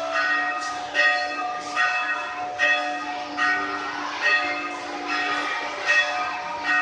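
Church bells ringing, struck a little under once a second, each stroke ringing on over a steady hum from the bells.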